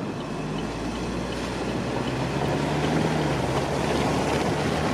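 Car moving, heard from inside: engine and road noise with wind, growing gradually louder as it pulls ahead.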